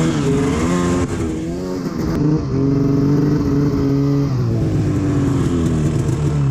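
Arctic Cat Alpha snowmobile's two-stroke engine running under throttle, its pitch wavering up and down.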